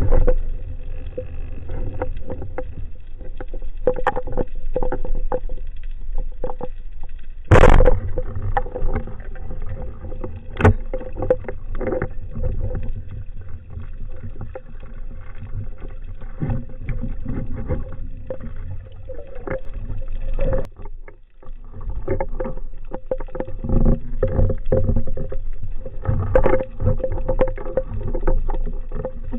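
Underwater sound picked up through a camera housing: a steady low rumble of water with scattered clicks and knocks, and one sharp knock, the loudest, about seven and a half seconds in.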